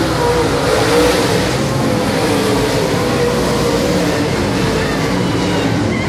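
A field of dirt late model race cars running at racing speed around the track, their V8 engines making a loud, steady din.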